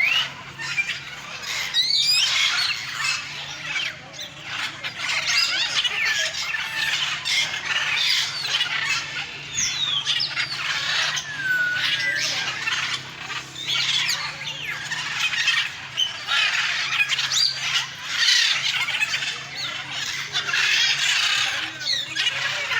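Aviary birds calling over one another without pause: a dense mix of squawks, squeals, chirps and short falling whistles.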